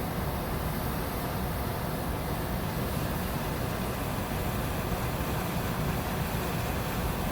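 Well-drilling rig's machinery running steadily, a constant low rumble with a noisy hiss above it.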